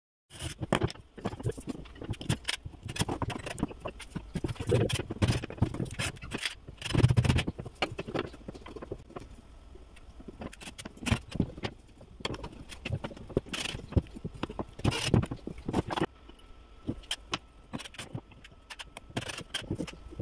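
Pine slats and small wooden parts being handled on a plywood workbench: an irregular clatter of knocks and clacks as pieces are set down and shifted, with scraping of wood on wood between them.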